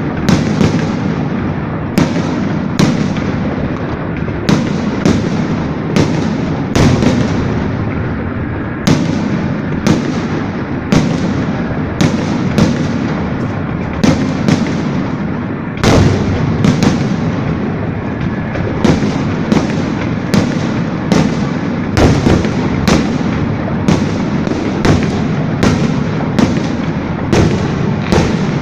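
Fireworks display: a continuous barrage of sharp firework bangs, a bit more than one a second, over a steady rumbling crackle.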